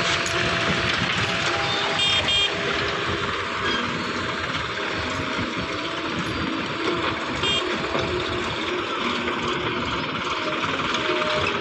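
JCB 3DX backhoe loader running steadily while working. Two short high beeps come about two seconds in, and one more later on.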